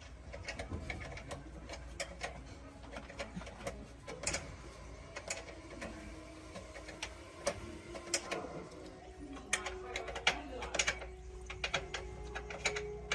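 Irregular clicks and metallic clinks of hand tools working on engine parts, with a faint ratcheting, mechanical character.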